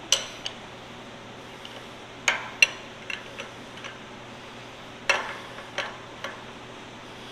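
Irregular sharp metallic clinks and knocks, about nine in all, from hand tools working on hydraulic hose fittings, over a steady background hiss.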